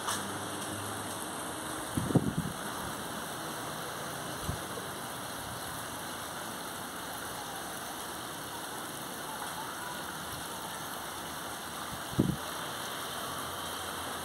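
Steady hiss of falling rain, with a few brief low thumps: one about two seconds in, a smaller one a couple of seconds later, and another near the end.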